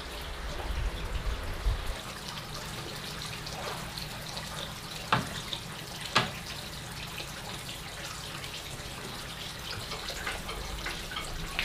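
Water running and trickling, with two sharp knocks about five and six seconds in.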